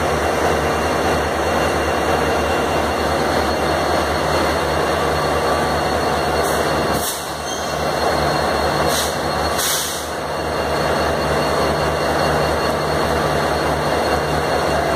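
Diesel locomotive engine idling with a steady low pulse, and a few short, sharp hisses about halfway through.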